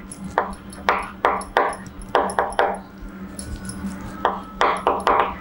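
Chalk on a blackboard: short tapping, scratching strokes in quick clusters as a word is written, with a pause of about a second and a half midway. A steady low hum runs underneath.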